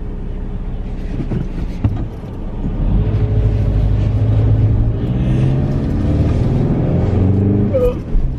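Car engine and road noise heard from inside the cabin while driving. The engine note grows louder about three seconds in and rises slowly in pitch as the car accelerates. A yawn near the end.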